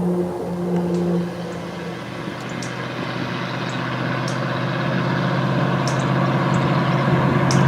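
Engine drone growing steadily louder, a higher hum giving way to a lower one about a second and a half in, with a few faint sharp ticks over it.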